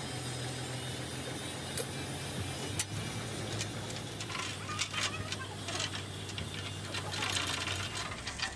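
An engine running steadily with a low drone, while a lifting chain clinks and rattles and the metal radiator frame knocks as the dozer radiator is lowered on the chain; the clinking grows busier in the second half.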